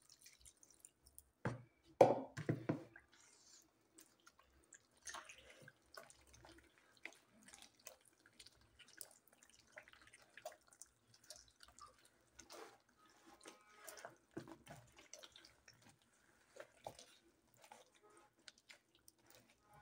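A hand squeezing and turning thick, wet okpa batter of bambara nut flour in a plastic bowl: faint, irregular squelching and smacking. About two seconds in there is a louder splash as water goes in from a cup.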